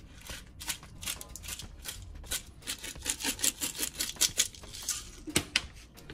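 A quick series of light clicks, taps and rattles from a measuring spoon and seasoning containers as dry seasoning is measured out and sprinkled, busiest in the middle.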